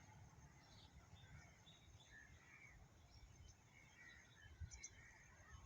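Faint distant birdsong: several birds giving scattered short chirps and calls, over a steady low rumble.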